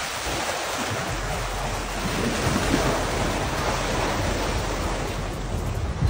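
Wind buffeting the microphone over rushing, splashing sea water, a steady noise with no pauses.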